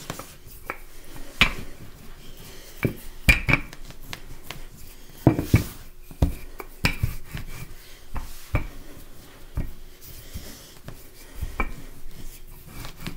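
Wooden rolling pin rolling out pie dough on a floured counter: a soft rubbing as the pin is pushed back and forth, with a sharp knock every second or two as the pin and hands come down on the counter.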